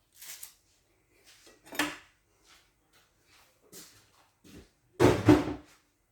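Kitchen handling sounds: a few short knocks and clatters of items being picked up and set down on a counter. The loudest knock comes about five seconds in.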